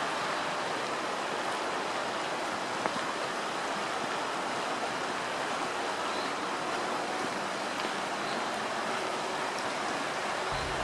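A pond fountain, its spray falling back onto the water in a steady, even splashing rush.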